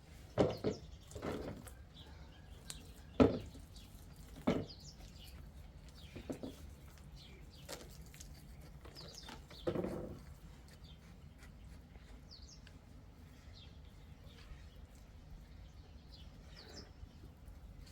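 Several sharp knocks and thuds, the loudest just after the start and about 3 and 4.5 seconds in, with faint bird chirps between them.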